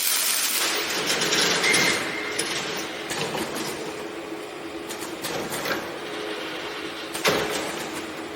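Rebar cage welding machine running: a steady machine hum with mechanical clatter and knocks. It is loudest and noisiest over the first two seconds, with a sharp knock about seven seconds in.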